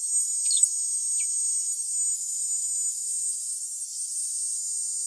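Hair dryer fitted with a diffuser attachment running steadily on wet curly hair: a constant hiss with a thin high whine. Two short, faint falling squeaks come in the first second or so.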